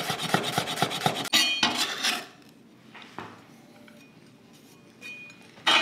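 Knife rapidly slicing garlic on a chopping board, quick even chops for about two seconds ending in a ringing clink. Then it goes quiet apart from a single tap, and a sharp knock near the end.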